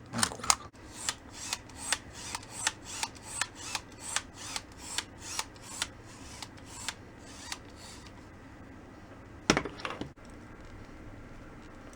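A steady run of small sharp clicks, about three a second, from the parts of a disassembled zoom lens being worked by hand, then a louder knock with a few clicks near the end.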